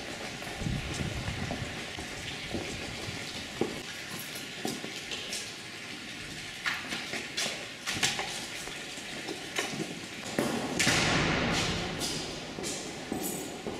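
Footsteps on a stone floor with scattered knocks and thuds, and a louder rushing noise about eleven seconds in that lasts a second or two.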